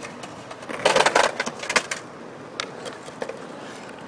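Skateboard clattering on concrete: a burst of loud wooden and wheel knocks about a second in, followed by a few lighter clacks as the board comes to rest.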